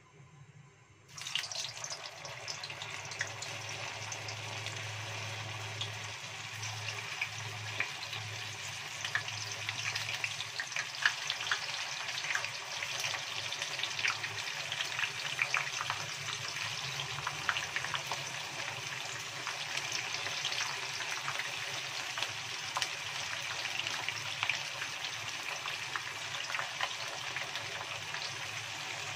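Stuffed tofu pieces frying in hot cooking oil in a wok: a sizzle starts suddenly about a second in and keeps going, full of small crackling pops.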